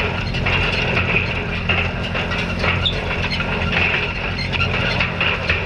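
Farm tractor engine running steadily while pulling a hay rake, with a constant clatter and rattle of the rake over the top.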